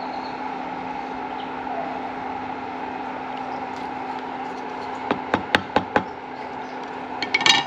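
Steady background hum, then a quick run of five sharp knocks a little past halfway and a short clatter near the end: pots and utensils being handled in a kitchen.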